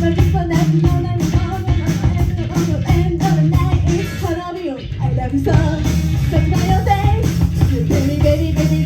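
Rock band playing live: a drum kit keeps a steady beat under bass and electric guitar, with a sung melody on top. The music briefly thins and drops in level about four and a half seconds in, then comes back full.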